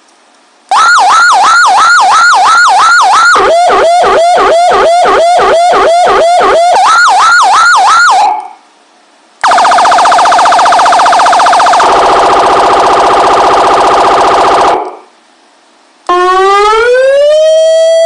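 YHAAVALE X5 100W electronic siren through its slim metal speaker, running three tones in turn with short gaps between them. First a fast yelp, sweeping up and down about four times a second, with a second, lower yelp layered on it for a few seconds in the middle. Then a buzzy, steady horn tone that drops slightly in pitch partway through, and near the end a wail that rises from low and levels off at a steady high pitch.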